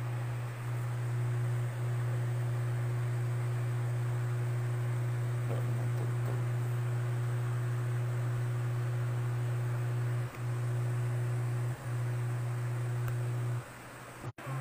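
A loud, steady low hum from the amplifier and loudspeakers, with a fainter higher tone over it; it drops out briefly twice near the end and then stops.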